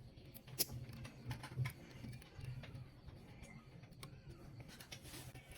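Scattered small clicks and taps of tool parts being handled, with one sharper click about half a second in, over a low steady hum.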